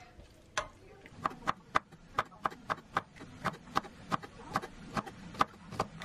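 Global chef's knife chopping green chili peppers on a wooden cutting board: quick, even knocks of the blade on the board, about four a second, starting about a second in.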